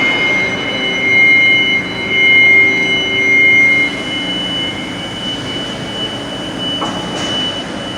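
Steady machine hum with two high, whining tones held over it. It swells three times in the first four seconds, then runs on more evenly.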